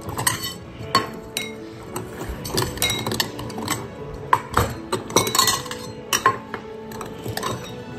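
Stainless steel cat food bowls clinking and clattering as they are handled and set down on a counter: a run of sharp knocks, many with a brief metallic ring.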